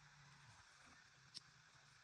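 Near silence: a faint steady low hum and background hiss, with one brief faint click about a second and a half in.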